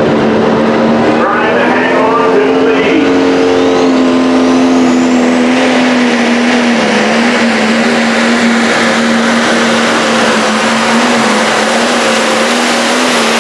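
Diesel super stock pulling tractor running at full power under load as it pulls the weight-transfer sled, with a loud, steady engine note. A high whine climbs in pitch a few seconds in.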